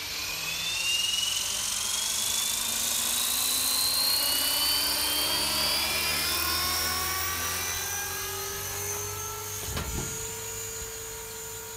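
JR Forza 450 radio-controlled helicopter spooling up with a whine that rises in pitch, then holding a steady whine as it lifts off and flies away, growing fainter over the last few seconds. A brief low thump about ten seconds in.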